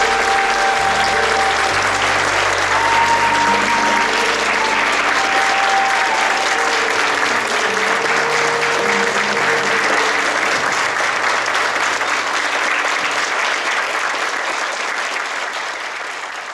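Large audience applauding, with background music under the clapping. The applause fades out near the end.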